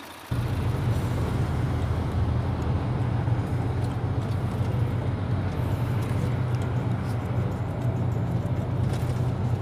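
Inside a heavy truck's cab while driving on a highway: a steady, low engine drone under continuous road and wind noise, starting abruptly a moment in.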